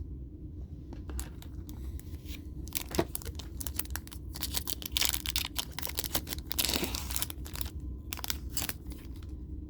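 Foil booster-pack wrapper crinkling and tearing open, with scattered clicks and rustles of the pack and cards being handled; the densest crinkling comes about five to seven seconds in.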